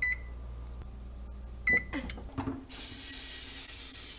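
Two short electronic beeps about a second and a half apart from an oven's touch control panel as its buttons are pressed to set the oven. Then, from a little before halfway, a steady hiss of aerosol cooking spray being sprayed onto a baking pan.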